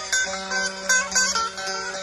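Turkish folk music played on a plucked long-necked lute, a bağlama (saz): quick runs of plucked notes over a steady low drone, the instrumental part of an aşık's türkü.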